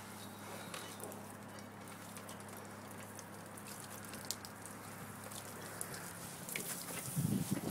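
Water-fed pole brush scrubbing window glass, its water jets pattering on the pane: a soft steady spatter with scattered light ticks over a faint low hum. A louder low rumble comes in near the end.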